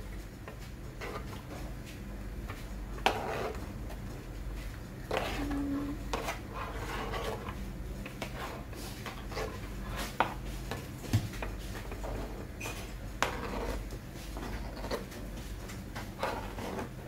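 A knife scraping tomato chunks off a plastic cutting board into a plastic blender jar: scattered scrapes, soft drops and a few sharp clicks, the sharpest about three seconds in and again about ten seconds in. A steady low hum runs underneath.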